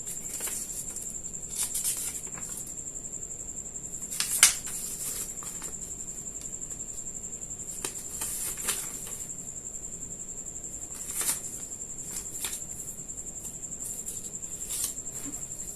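Paper rustling and handling of a keyboard's user manual: scattered short crinkles and clicks, the loudest about four and a half seconds in. A steady high-pitched tone runs underneath.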